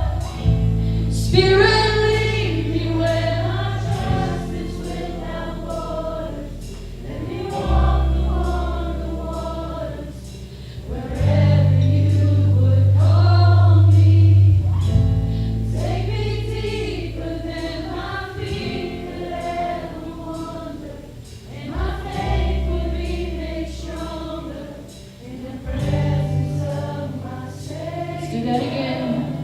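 Church worship band playing a slow worship song, with voices singing over sustained low chords that change every few seconds.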